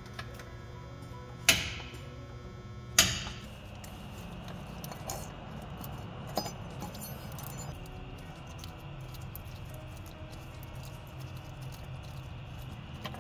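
Two sharp metallic hammer taps, about a second and a half apart, on a wrench set on the IPR valve of an International DT466 diesel to break the valve loose. Small metal clicks and clinks follow as the wrench turns the valve out.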